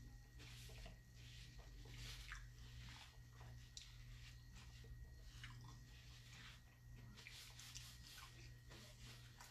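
Faint close-up chewing: irregular wet mouth smacks and clicks as a man eats a mouthful of fish sandwich, with a paper napkin rustling in his hands.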